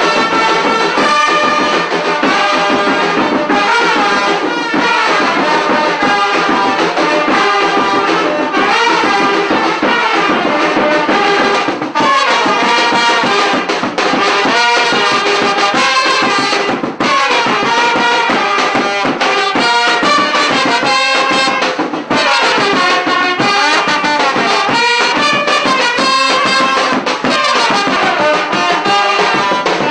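Vietnamese funeral brass band playing a continuous melody on trumpets and trombones.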